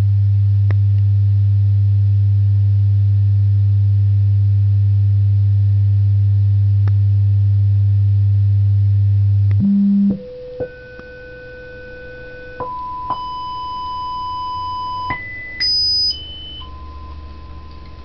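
Bozak B-305 loudspeaker playing sine-wave test tones. A loud, steady deep tone holds for nearly ten seconds. It is followed by quieter single tones stepping up in pitch, a brief shrill tone at the top, then a middle tone again near the end.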